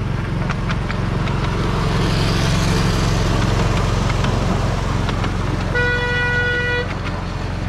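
Small miniature-railway locomotive's engine running steadily as the train passes, louder in the middle. Near the end the locomotive gives one horn toot about a second long.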